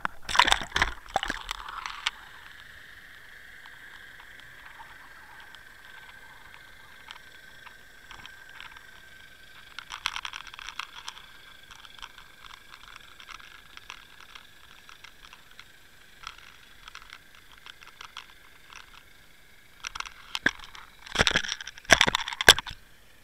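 Muffled underwater clicks, rattles and scrapes from a fishing rig with a camera and bucktail jig dragging across a sandy bottom. They come in clusters at the start, about ten seconds in, and loudest near the end, over a faint steady high whine.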